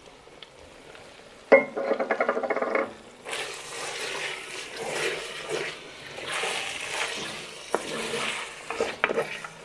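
A wooden spoon stirring chopped tomatoes into browned mince in a hot cast-iron Dutch oven, the liquid hissing and sizzling in swells as it is worked through. About a second and a half in, a short rattling scrape comes before the stirring starts.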